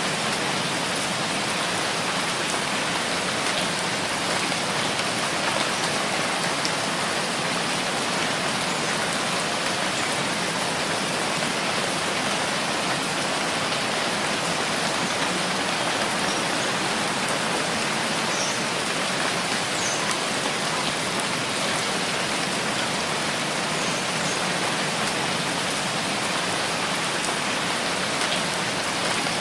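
Steady rainfall, an even hiss of rain with no change in level.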